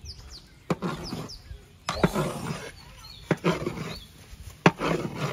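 A long paddle stirring and scraping thick khichuri in a large aluminium pot, one stroke every second or so. A few short bird chirps sound near the start.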